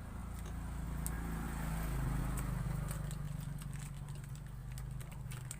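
A low motor rumble that grows louder to a peak about two seconds in, then slowly fades, with a few faint clicks on top.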